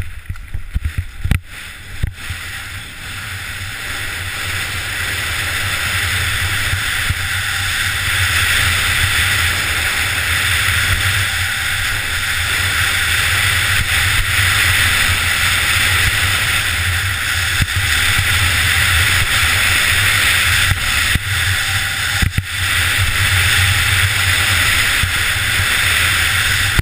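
Wind rushing and buffeting over a helmet-mounted GoPro's microphone, with skis hissing on packed snow, during a fast super-g run. A few knocks in the first two seconds; the rush grows louder as speed builds, then holds steady, dipping briefly about 22 seconds in.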